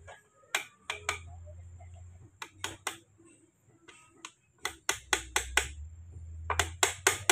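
Irregular sharp metallic clicks and clacks as the shift rails, selector forks and a steel pipe tool are handled on an open Mitsubishi Triton manual gearbox. The clicks come in small clusters, thickest near the end.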